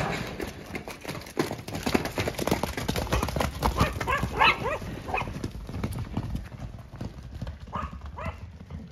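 Horses galloping on soft, muddy grass, with a rapid, uneven run of hoofbeats. Several short, high-pitched cries break in around the middle and again near the end.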